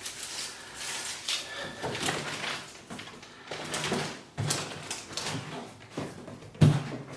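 Plastic protective film and wrapping on a new iMac being handled and pulled, rustling and crinkling in irregular bursts with small clicks, and one louder knock about six and a half seconds in.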